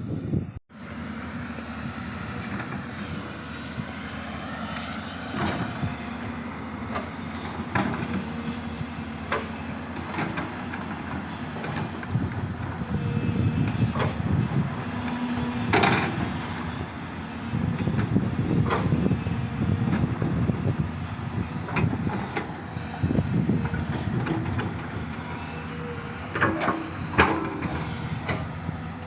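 Hydraulic crawler excavators at work: a steady diesel engine drone that swells and eases with the load, with scattered sharp metallic clanks and knocks.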